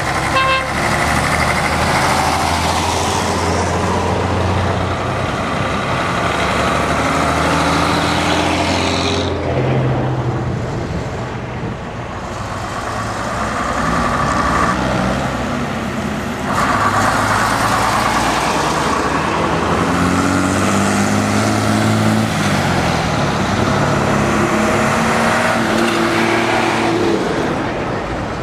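Vintage diesel trucks driving past one after another, pulling away under load. The engine note repeatedly climbs, breaks off and climbs again as they change gear.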